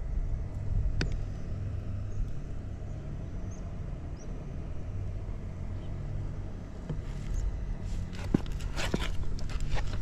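Suzuki GS50's small single-cylinder four-stroke engine idling steadily, with an even, quiet note and no abnormal noise. A few sharp clicks and knocks come about a second in and again near the end.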